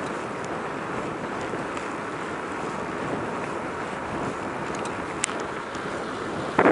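Wind rushing over the microphone of a camera on a moving bicycle: a steady rushing noise with a few faint ticks, which turns suddenly much louder just before the end.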